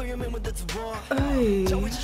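K-pop song playing: male vocals over a deep bass and beat, with one long sung line that dips in pitch and holds through the second half.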